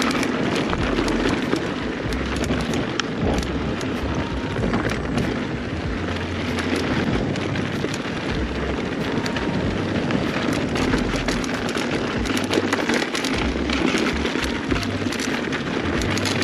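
Mountain bike tyres rolling fast over a rough dirt trail: steady crunching of dirt and gravel, broken by frequent sharp clicks and knocks.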